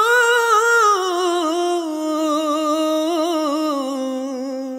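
A solo singing voice from a Hindi love song holding one long wordless note, winding down in pitch through small ornamented turns and easing off slightly toward the end.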